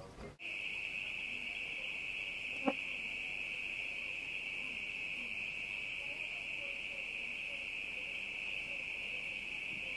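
Night insects, such as crickets, trilling in a steady high-pitched chorus that starts abruptly about half a second in. A single sharp click comes near the three-second mark.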